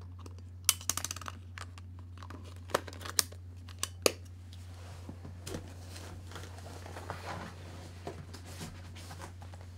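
Handling noise: sharp plastic clicks and knocks as a camera is handled and put away, then soft rustling of a cardboard package being picked up. A steady low hum runs underneath.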